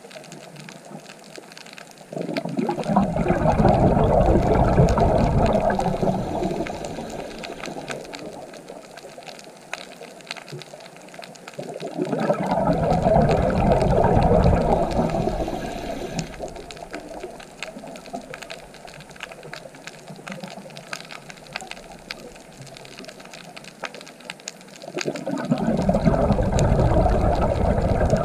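Underwater rush of a scuba diver's exhaled bubbles: three swells of bubbling, each a few seconds long and about ten seconds apart, with a quiet hiss between breaths.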